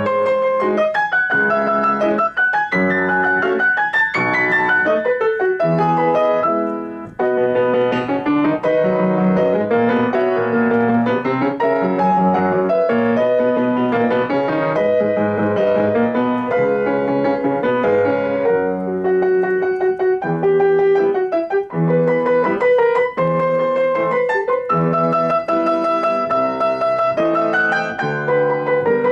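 Grand piano played solo: a classical étude in a steady stream of notes, with a short break about seven seconds in before the playing goes on.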